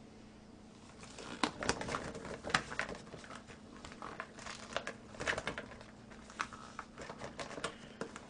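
Pink rubber kitchen glove being pulled onto a hand: irregular crinkling and rubbing crackles that start about a second in.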